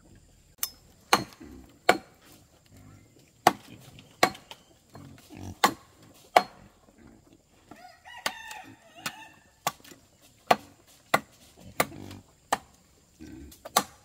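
Sharp knocks repeated at an uneven pace, roughly one or two a second, such as chopping or hammering. A rooster crows once, briefly, about eight seconds in.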